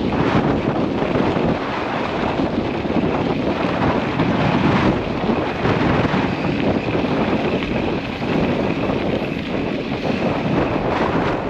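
Off-road vehicle running along a trail, with wind buffeting the microphone over a steady rumble.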